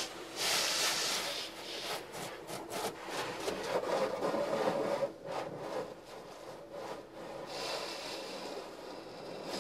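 Automatic tunnel car wash heard from inside the car: soft-cloth curtain strips and cloth brushes rubbing and slapping across the windshield and body while water sprays over the glass. There are runs of quick slaps about two seconds in and again around five to seven seconds.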